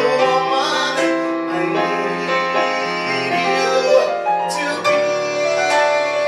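Piano playing an instrumental passage of a musical-theatre ballad, held chords ringing and changing every second or so.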